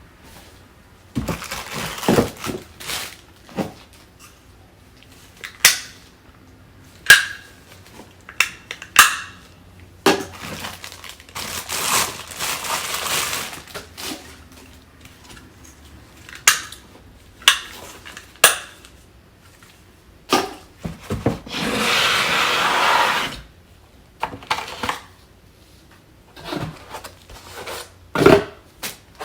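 Parts of a Nutribullet blender set being unpacked and handled: scattered clacks and knocks of plastic cups, lids and pieces set down and fitted together, with two longer stretches of rustling packaging.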